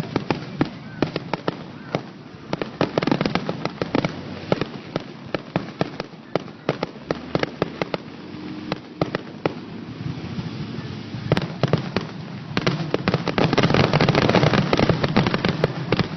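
Fireworks going off: a rapid, irregular string of sharp bangs and crackles, densest and loudest about two thirds of the way through.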